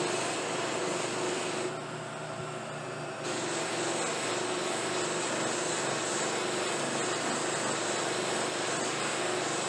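Buffing machine running steadily, its spinning buffing wheels hissing as a dyed briar pipe bowl is worked against them. About two seconds in, the higher hiss drops away for a second and a half, then comes back.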